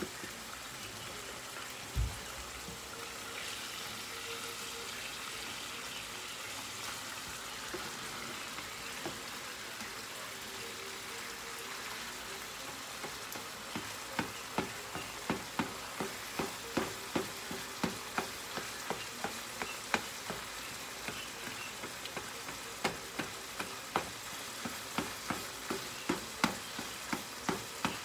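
Ground beef sizzling in a frying pan with a steady hiss, and a single thump about two seconds in. From about halfway a slotted spatula scrapes and taps against the pan about twice a second as the meat is stirred and broken up.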